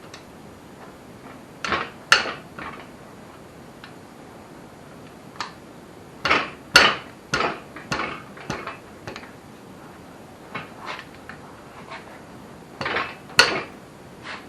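Metal tools and engine parts clanking and knocking as the crankshaft is taken out of a Holden 173 red six-cylinder engine: sharp metallic knocks in three bunches, about two seconds in, through the middle, and near the end.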